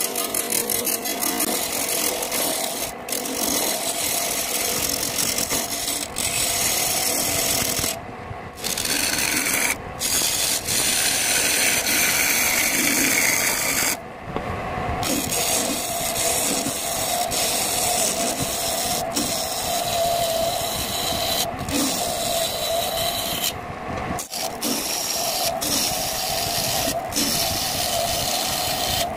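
Wood lathe spinning a bowl blank of sonokeling and petai jawa wood while a hand-held turning chisel cuts its outside, giving a continuous scraping hiss over the lathe's steady hum. The hiss breaks off briefly a few times as the tool lifts off the wood.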